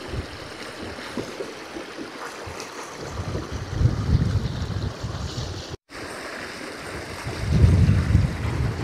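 Small mountain stream rushing and splashing over rocks, with gusts of wind buffeting the microphone about halfway through and again near the end.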